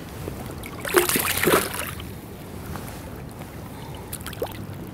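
Steady rush of a river's current, with a brief burst of splashing about a second in as a hooked trout is brought to hand at the surface.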